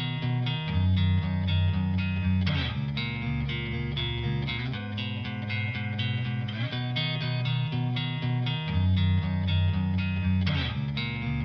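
Background music: guitar-led instrumental with a steady strummed rhythm and a bass line.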